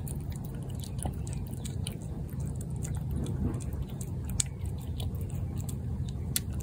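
A cat chewing wet cat food off a plate, with irregular small wet clicks and smacks, over a steady low hum.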